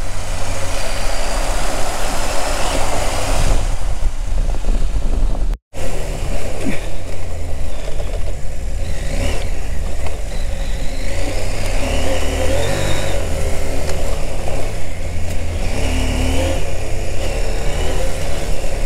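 Parallel-twin adventure motorcycle engine running under way on a dirt track, its pitch rising and falling with the throttle, with wind and tyre noise over it. The sound cuts out for an instant about five and a half seconds in.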